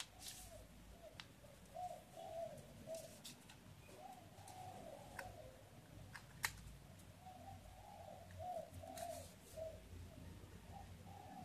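A bird cooing over and over in short wavering phrases, faint. It is mixed with soft rustles and a few sharp clicks from sheet paper being pressed and creased by hand, the sharpest click about six seconds in.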